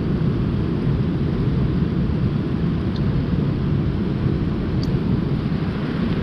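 Steady low rumbling rush of a fast river's flowing water, even and unbroken.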